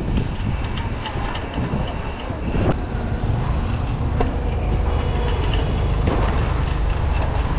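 Wind rushing over a bike-mounted camera microphone and road rumble from a mountain bike being ridden along a street, with scattered clicks and rattles from the bike.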